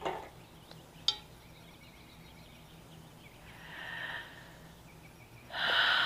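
A single sharp clink of a wine glass about a second in, then two breathy exhalations without clear pitch: a soft one around the middle and a louder one near the end.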